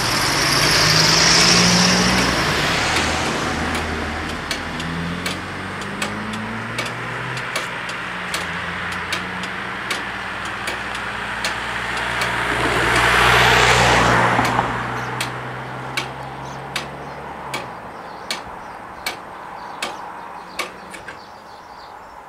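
Cars driving off over a level crossing: engines hum as the queue moves away, and one car passes close just past the middle, the loudest moment. A regular click sounds about every three-quarters of a second under it, growing fainter toward the end.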